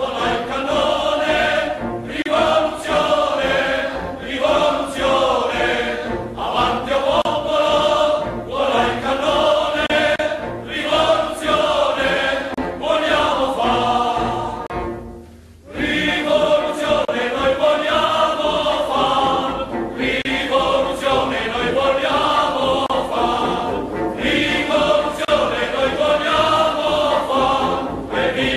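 Background music with choral singing, in phrases of a second or two; about halfway through it fades almost to silence for a moment, then the singing starts again.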